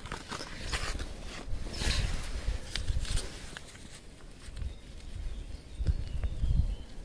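Footsteps and rustling handling noise, with irregular low rumbling of wind on the microphone.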